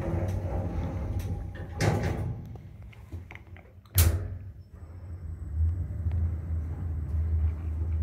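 Passenger lift built in 2012 in operation. There is a low hum from the lift and a thud about two seconds in. Its automatic sliding doors shut with a sharp bang about four seconds in, and the low hum of the lift comes back shortly after.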